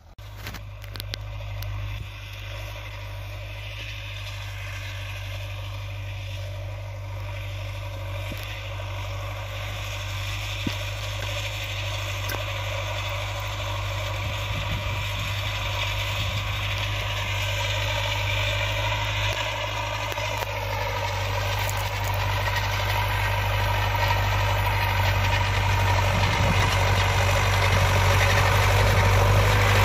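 A Zetor 7711 tractor's four-cylinder diesel engine running steadily under load as it pulls a disc harrow, growing gradually louder as it approaches.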